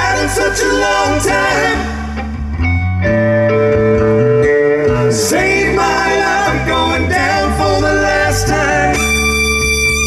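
Live band playing a song: a voice singing over guitar, with a heavy bass and drum low end. The voice drops out for about two seconds in the middle while held notes ring, then comes back in.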